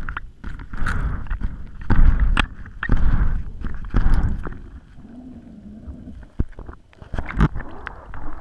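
Muffled underwater knocks and rumbling from a camera housing on a magnet-fishing rope as it is hauled up through the water and out.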